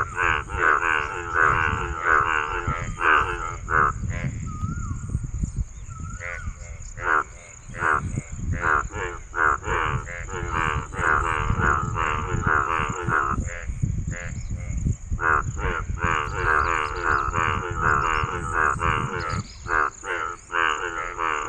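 Male frog croaking: a run of rapid, rasping calls repeated over and over, pausing briefly about four seconds in and again near the middle, over a steady high-pitched tone.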